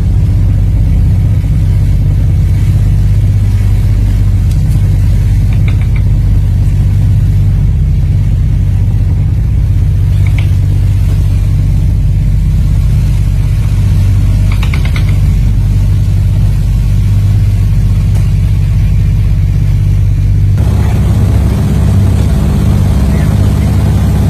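Boat engine running with a steady low drone, heard from aboard the moving boat. Near the end the sound shifts, with more hiss over the drone.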